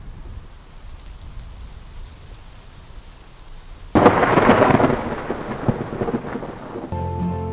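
Thunderstorm sound effect: a low rumble with rain building, then a sudden loud thunderclap about four seconds in that slowly fades.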